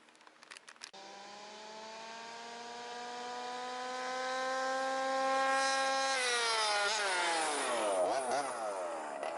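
Small two-stroke gasoline engine of a 1/5-scale RC truck. It comes in about a second in after a few clicks and runs at a steady, slowly rising pitch. About six seconds in the pitch drops, then it revs up and down repeatedly.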